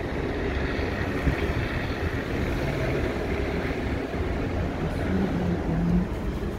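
Steady road and engine noise of a car driving slowly along a city street, heard from inside the car.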